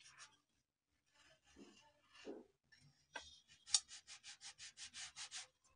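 Long kitchen knife sawing back and forth through a sponge cake to split it into layers: faint rubbing at first, then quick regular rasping strokes, about six a second, in the second half.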